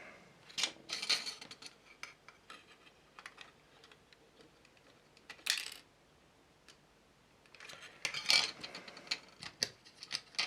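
Light clicks and rustling of small plastic model-kit parts being handled and fitted. There are scattered taps in short clusters, the busiest near the start, around the middle and in the last few seconds.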